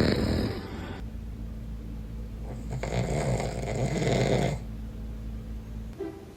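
A man snoring: one snore ends about a second in, and a second long snore follows about two and a half seconds in, with quieter breathing between.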